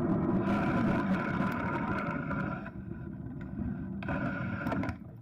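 Rumbling ride noise from a moving electric scooter or bike with wind on the microphone, with a faint steady whine; it dips quieter a little past halfway, comes back briefly near the end, then fades out.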